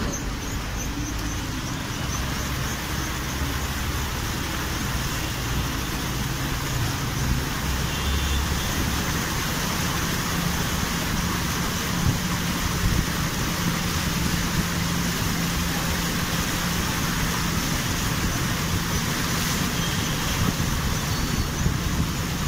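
A vehicle's engine running with a low hum, under the steady rush of muddy floodwater churning alongside it.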